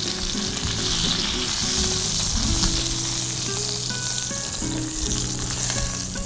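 Shrimps sizzling as they fry in oil in a skillet, a steady hiss, with background music underneath.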